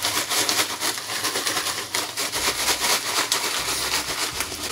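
Ice cubes and rock salt rattling inside towel-wrapped plastic bags shaken hard and fast, a rapid continuous rattle: salted ice being shaken around an inner bag of mix to freeze it into ice cream.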